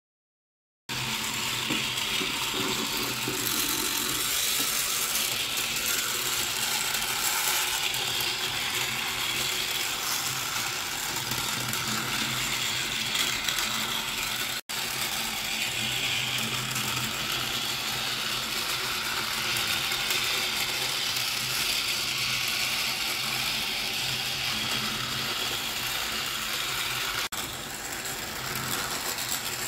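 Battery-powered plastic toy train running on its track: its small motor and plastic gears whirring and rattling steadily. The sound starts about a second in and cuts out for an instant about halfway through.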